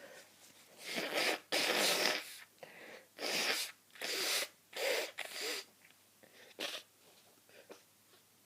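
A person with a head cold sneezing and clearing a stuffed-up nose, in a run of about six sharp, hissing bursts, the longest and loudest about two seconds in.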